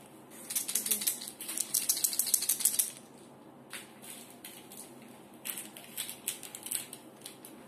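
Small candy tablets rattling inside a little plastic tube of Mini Peach sweets, in a quick run of clicks over the first few seconds, then a second run of rattling about two-thirds of the way in.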